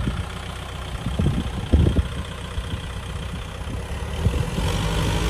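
Kubota M6040SU tractor's diesel engine running under load as the tractor works through deep, loose sandy soil with its wheels sunk in, with a few dull knocks in the first two seconds. The engine grows steadier and a little louder near the end.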